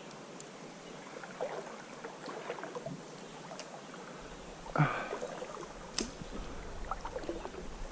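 Faint stream water with scattered small splashes and clicks while fishing from the water, a louder knock about five seconds in, and low wind rumble on the microphone from about four seconds.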